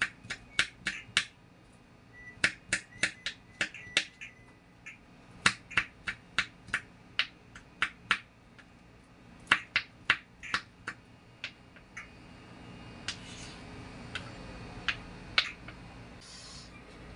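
Kitchen knife chopping garlic on a bamboo cutting board: quick runs of sharp knocks, about three to four a second, broken by short pauses, with only a few scattered chops near the end.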